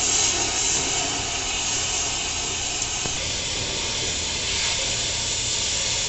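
Oxy-fuel cutting torch hissing steadily as it burns out the old fire tubes from a steam boiler's tube sheet.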